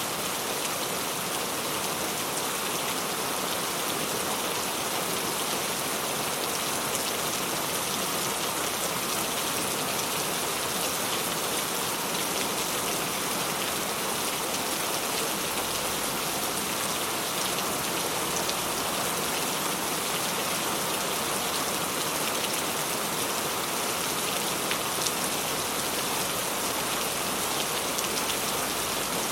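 Steady rain falling: an even hiss flecked with the faint ticks of individual drops.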